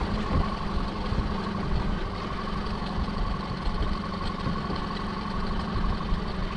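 Small fishing boat's engine idling steadily, a low hum with a steady higher whine above it.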